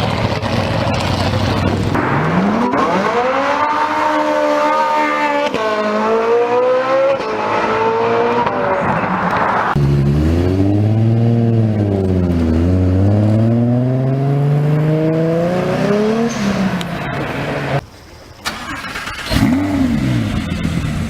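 High-performance car engines accelerating hard across several short edited clips. The engine pitch climbs steeply, drops and climbs again through gear changes. Near the end a single short rev rises and falls.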